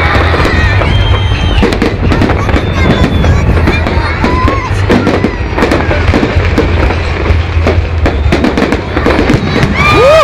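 Fireworks display: a rapid, continuous barrage of bangs and crackles from bursting shells.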